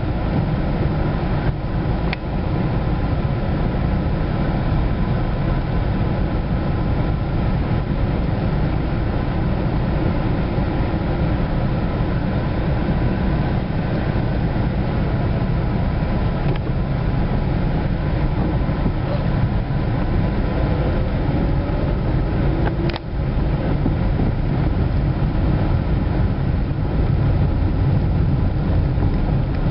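Car engine and road noise heard from inside the cabin while driving slowly, steady and mostly low, with a couple of brief clicks.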